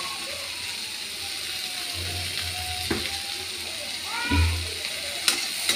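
Sliced onions sizzling in hot oil in a kadhai, a steady frying hiss. A few sharp clicks of the metal slotted spatula against the pan come in the second half.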